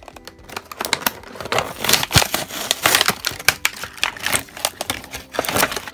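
Plastic toy packaging of a Shopkins 12-pack crinkling and crackling as it is pulled open by hand. The crackles come in a rapid, irregular run and grow denser after about a second and a half.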